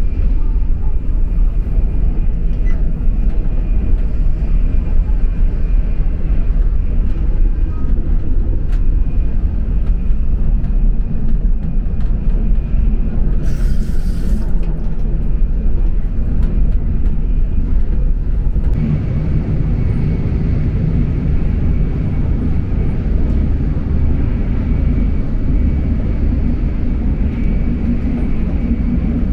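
Steady low rumble of an N700S Shinkansen train running, heard from inside its onboard lavatory and washroom. A brief hiss lasts about a second midway, and the rumble turns deeper and louder about two-thirds of the way in.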